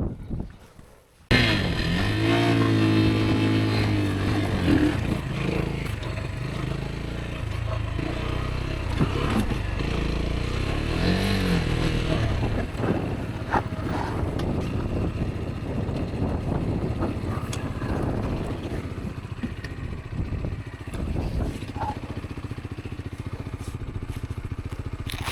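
Rieju Aventura 125's single-cylinder engine comes in suddenly just over a second in, revs up and down a few times, then runs steadily with scattered knocks and clatter.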